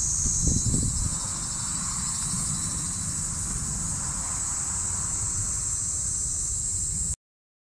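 Steady high-pitched insect chorus over a low wind rumble, with a brief louder low rumble about half a second in. The sound cuts off abruptly about seven seconds in.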